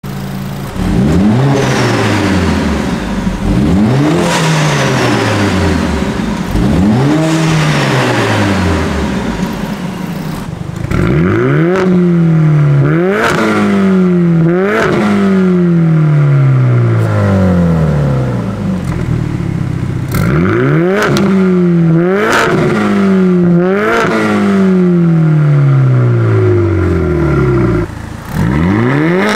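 Mercedes-AMG CLA45 S's turbocharged 2.0-litre four-cylinder, breathing through catless downpipes and a Fi Exhaust valvetronic catback, free-revving again and again while parked. Each rev climbs quickly and falls away slowly, with crackles and pops on the overrun. The later, quicker revs are made with the exhaust valves closed.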